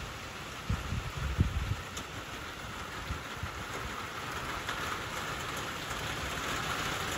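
Steady rain falling, hard enough to blow into an open-sided shelter, with a few low thumps about a second in.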